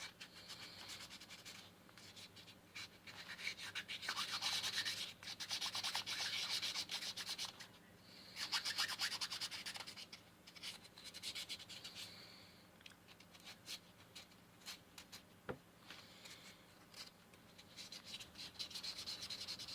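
Wet 800-grit sandpaper rubbed back and forth over a tobacco pipe, in several bursts of quick scratchy strokes with short pauses between them.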